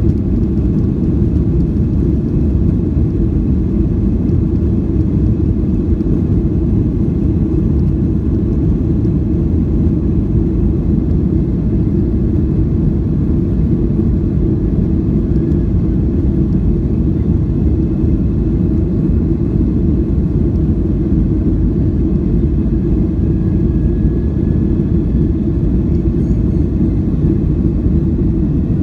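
Cabin noise inside a Boeing 737-800 taxiing: a steady low rumble from its CFM56-7B engines at taxi thrust, with no spool-up.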